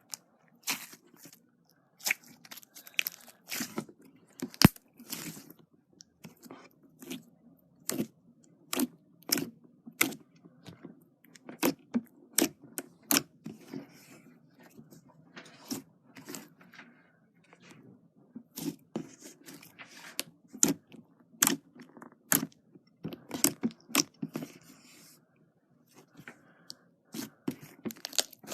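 Slime being worked by hand, giving irregular sharp pops and crackles, several a second, with short pauses.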